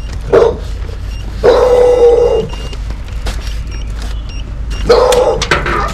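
Boxer dog barking behind a gate in drawn-out, howling barks: a short one near the start, a long one about a second and a half in, and another near the end.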